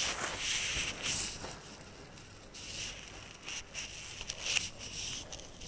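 Clothes and plastic packaging rustling as they are handled and unfolded, in uneven soft scratchy swishes.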